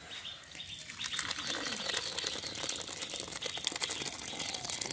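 Thick, steaming-hot moong dal with fish heads poured from an iron kadai into a clay bowl, with a dense, crackling sizzle that starts about a second in and keeps on.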